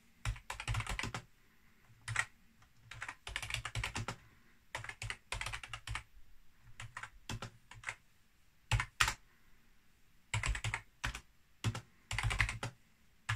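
Typing on a Logitech computer keyboard: bursts of key clicks separated by short pauses as a line of code is entered.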